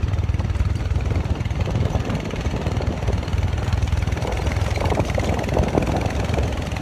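Motorcycle taxi engine running steadily while riding, heard from the pillion seat as a continuous low rumble.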